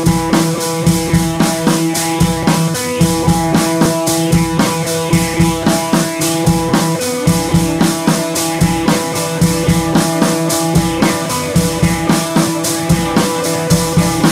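Background music with a steady drum beat over held tones.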